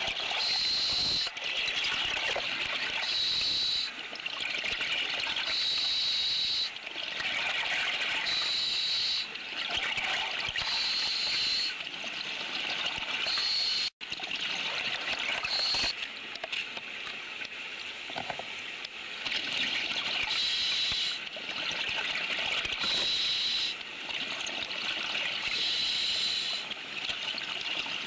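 A diver's breathing gear underwater: a hiss about a second long comes roughly every two to three seconds, with bubbling and crackling between the breaths. The sound breaks off for an instant about halfway.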